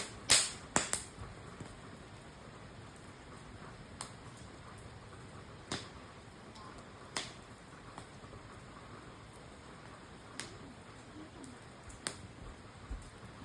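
Campfire wood crackling: sharp, irregular pops over a low steady hiss, with a loud cluster of pops about half a second in and then single pops every second or two.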